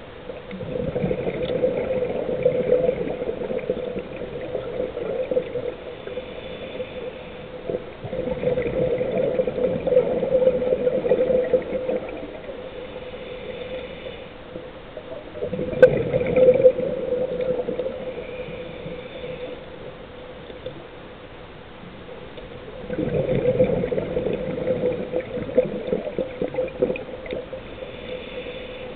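Scuba diver's breathing through a regulator: exhaled bubbles rush and gurgle in four bursts of a few seconds each, about seven seconds apart, with quieter gaps between breaths. A faint steady hum runs underneath.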